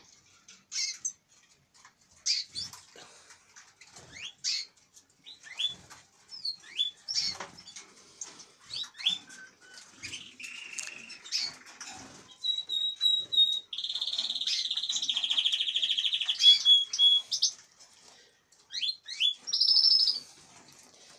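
Caged finches chirping and calling over and over, with a long, fast trilled song phrase about two-thirds of the way through, and a few faint knocks.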